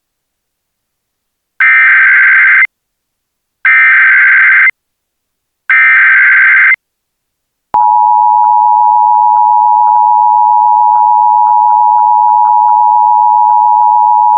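Emergency Alert System tones: three loud one-second bursts of the SAME digital header, a screechy data warble, each followed by a second of silence. About eight seconds in, the steady two-tone EAS attention signal starts and holds, announcing an emergency alert.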